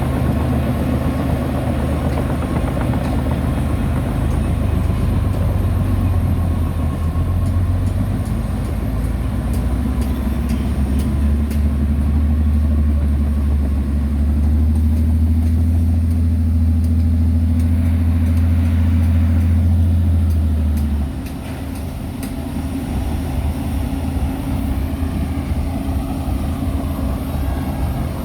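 Heavy construction machine's diesel engine running steadily under load. It grows louder for a stretch, then drops back sharply about three-quarters of the way through as the throttle eases.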